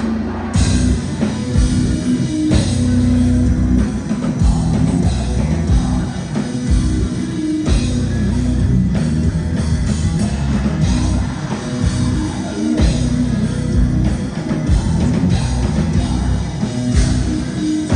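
Heavy metal band playing live, loud: distorted electric guitars over a fast, dense drum kit.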